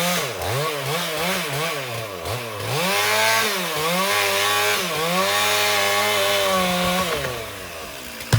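Two-stroke chainsaw cutting through pine wood, its engine speed repeatedly dipping under load and climbing back as the chain bites and frees up. The engine note eases down near the end, and a sharp knock comes right at the end.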